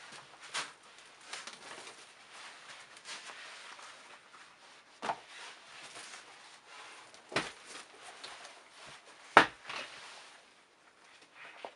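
Shoes being handled and set down on a tabletop: about five separate knocks, the loudest about four-fifths of the way through, with light rustling of handling in between.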